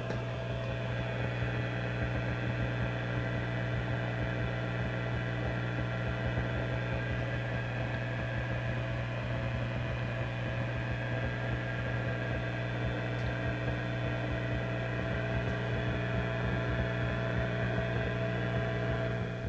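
Vintage tube amplifier humming with static: a strong low hum and a stack of fainter steady tones over an even hiss, unchanging throughout.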